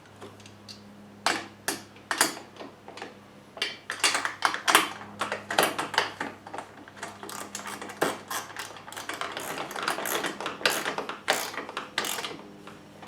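Socket ratchet wrench clicking in short runs of rapid clicks as nuts are run down onto bolts, with scattered metal clinks and a low steady hum.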